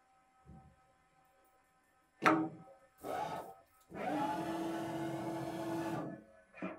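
TRAK 1845SX CNC lathe running a drilling cycle with a 5/16 drill in a spinning workpiece: short sharp cutting noises near the middle, then a steady machine whine for about two seconds as the drill pulls back out of the hole, stopping shortly before the end.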